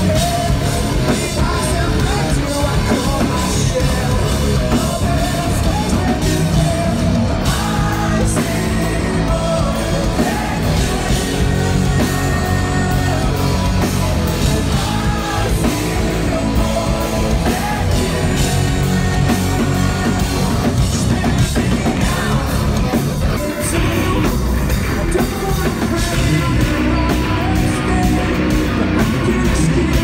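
Live progressive rock band playing loud, with a male singer's vocals over drums, bass and guitars, recorded on an iPhone in the crowd.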